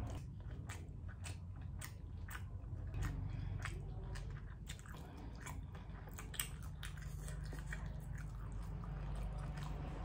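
A person biting into and chewing steamed squid, with many small irregular wet clicks of the mouth and food.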